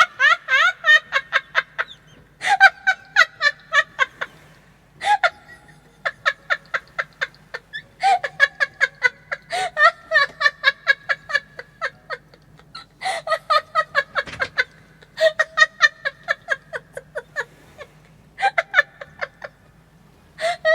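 A woman laughing uncontrollably: high-pitched fits of rapid giggling pulses, coming in repeated bouts with short pauses for breath between them.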